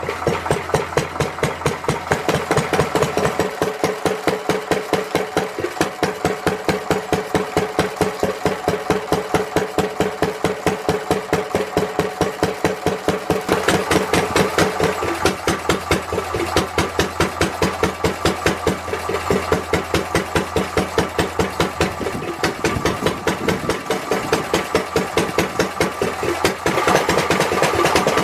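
Lister D 1.5 HP single-cylinder four-stroke stationary engine running steadily after its rebuild, with an even, regular firing beat. It gets a little louder near the end.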